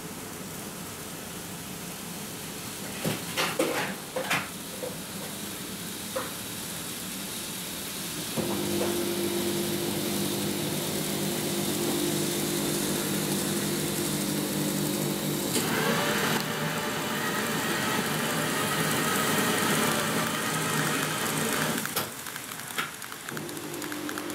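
KATO N-gauge 885 series model train running along the track: a few sharp clicks in the first seconds, then a steady low electric motor hum, joined about halfway through by a higher wavering whine, with a brief break and more clicks near the end.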